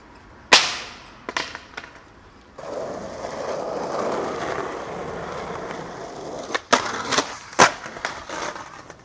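Skateboard on pavement: one loud crack of the board about half a second in and a few lighter clacks, then the wheels rolling steadily for about four seconds, then three loud cracks of the board in quick succession followed by more rolling.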